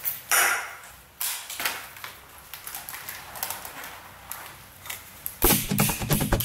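Handling knocks and clicks: a metal drink can set down on a glass counter, then the rustle and taps of a motorcycle helmet being pulled on. About five seconds in, rhythmic percussive music starts.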